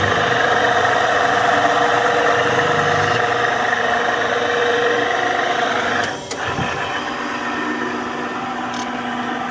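VZ-173 knife-grinding machine running with a steady mechanical hum of several tones. About six seconds in the sound dips briefly and then settles into a lower, slightly different hum.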